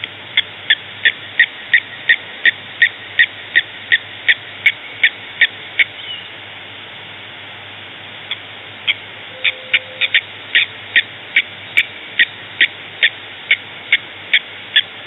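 An animal calling with a short, high note repeated evenly about three times a second, in two long bouts with a pause of about three seconds between them.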